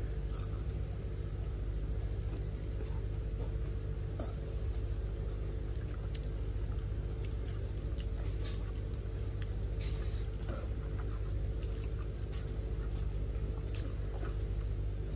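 People chewing food, with scattered small clicks and rustles, over a steady low hum.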